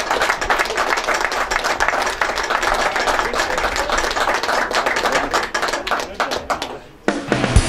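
A small crowd clapping in applause, many quick overlapping claps that thin out and fade away near the end.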